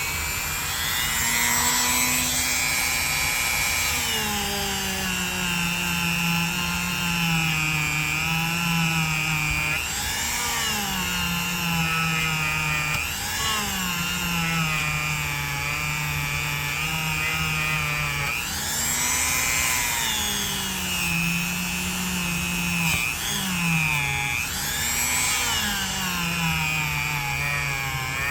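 Dremel rotary tool running with a buffing pad and rubbing compound on a pocketknife. Its whine keeps sagging in pitch and climbing back, about every two to three seconds, as the tool is loaded and eased off the metal.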